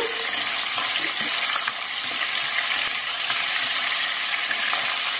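Whole spices (cumin and mustard seeds, dried red chillies and chopped green chillies) sizzling steadily in hot oil in a nonstick wok while a spatula stirs them.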